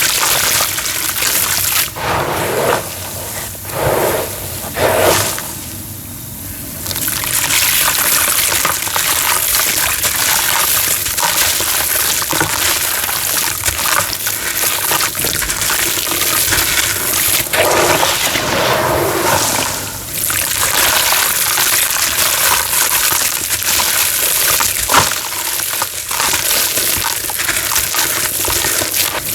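Dry homemade cement crunching and crumbling: a dense, gritty crackle of many small clicks as the pieces break and the grit falls, easing briefly about six seconds in.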